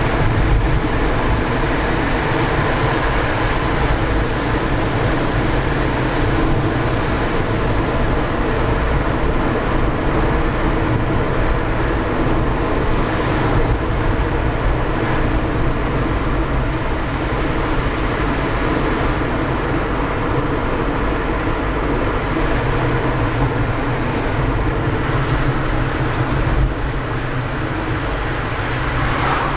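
Steady road and engine noise inside a moving car's cabin. It gets a little quieter after a short jolt near the end.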